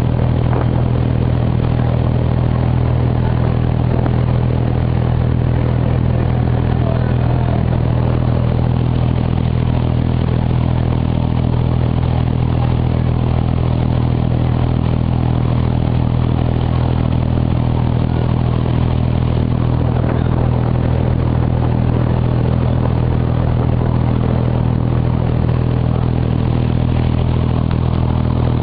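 Wooden abra water taxi's diesel engine running steadily under way, a loud, even low hum that does not change speed.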